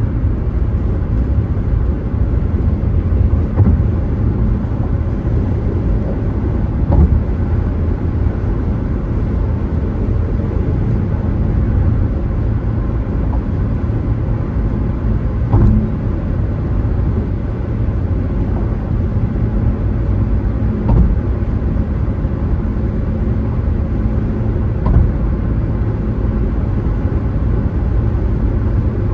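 Car driving along a road: a steady low rumble of road and engine noise, with a few short thumps spaced several seconds apart.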